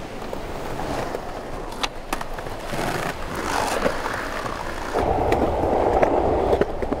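Skateboard wheels rolling over a concrete sidewalk: a steady gritty rumble with scattered sharp clicks, growing clearly louder about five seconds in.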